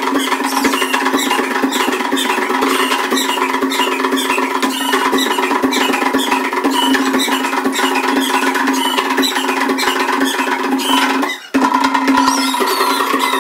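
Live music for a traditional African dance: drumming and dense rhythmic clicks over a steady held tone, with short high squealing calls repeated on top. The sound drops out for a moment near the end, then comes back.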